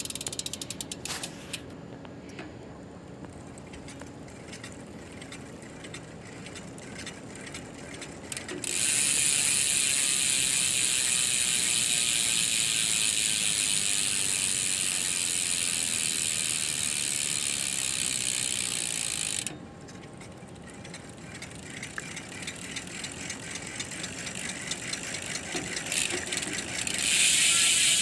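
Speedone Soldier six-pawl rear bicycle hub freewheeling, its pawls ratcheting. Separate clicks speed up into a loud, continuous high buzz that stops suddenly about two-thirds of the way through. The clicks then build again into the buzz near the end.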